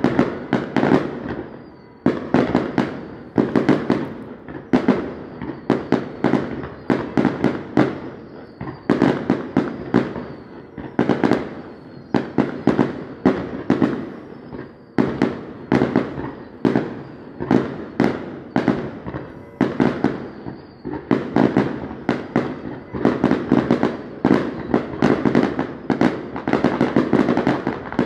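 Aerial fireworks display: shells bursting in rapid, uneven volleys of bangs, several a second, coming in bunches.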